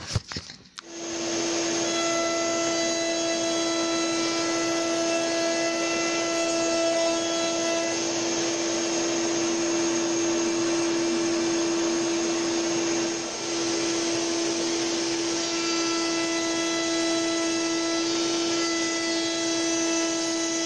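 A table-mounted router with a small beading bit at full speed and the workshop vacuum hooked to it switch on together about a second in and run at a steady pitch. There is a brief dip about two-thirds of the way through.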